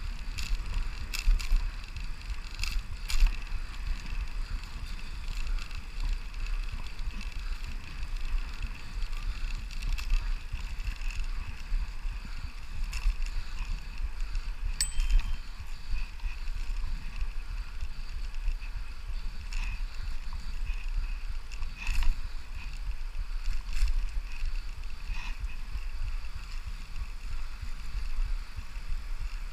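Brompton folding bicycle ridden along a paved path: steady tyre and wind rumble on a handlebar-mounted camera, with scattered clicks and rattles from the bike.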